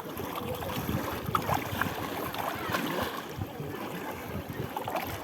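Seaside noise: a steady rush of water and wind, with an uneven low rumble under it.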